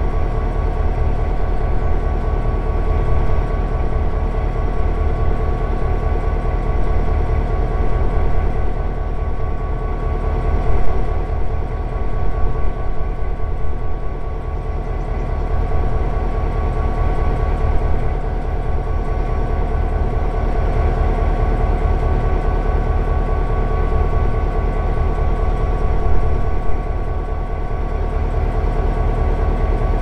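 EMD GP38-2 diesel-electric locomotive idling: its 16-cylinder two-stroke EMD 645 diesel runs at a steady idle, a low, even drone with steady higher tones above it.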